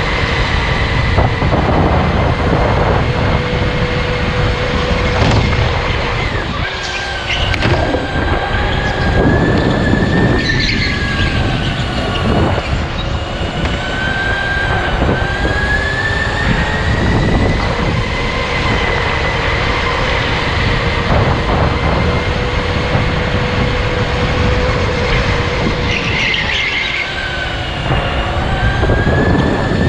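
Electric go-kart motor whining at speed through a lap, its pitch sagging and climbing back twice as the kart slows for corners and accelerates out, over a steady low rumble from the kart on the track.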